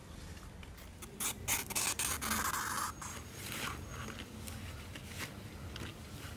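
Banana leaves rustling and a cloth towel rubbing and scraping across a banana leaf, wiping it clean. The loudest rustling comes in a cluster about one to three seconds in, followed by softer repeated rubbing strokes.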